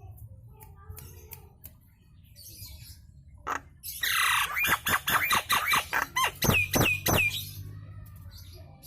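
Nias hill myna calling: a few faint chirps and clicks, then about four seconds in a loud rapid run of about a dozen sharp calls, finishing with three ringing whistles that hook upward. A low steady hum lies underneath.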